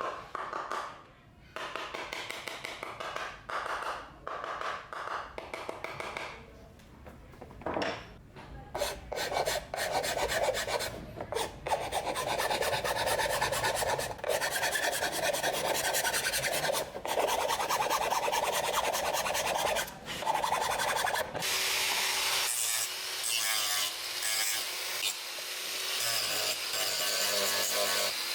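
Rasping, abrasive rubbing strokes of hand work on a part. The strokes are broken up at first, run continuously and fast from about nine seconds in, and turn finer and higher-pitched near the end.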